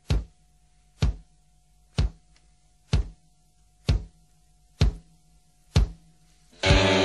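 Background music: a deep drum hit about once a second over a faint held tone, then the full track comes in near the end with loud sustained chords.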